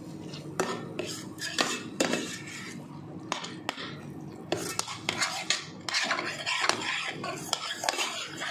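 A spatula scraping and knocking against a stainless-steel pan while spinach paste is stir-fried, in irregular strokes that grow busier in the second half.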